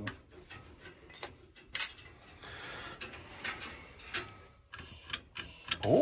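Small metal clicks of a wrench working the pilot-tubing flare nut on a boiler's gas valve, with a soft hiss of gas escaping from the loosened fitting about two and a half seconds in. Gas reaching the valve's pilot outlet shows the blockage lies further on, in the pilot tubing or pilot burner.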